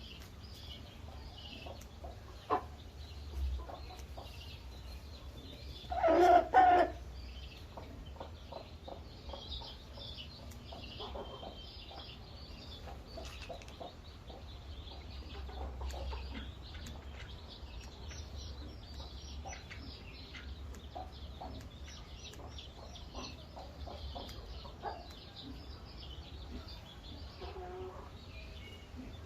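Chickens clucking, with one louder two-part call about six seconds in, among continual high chirps and a low rumble.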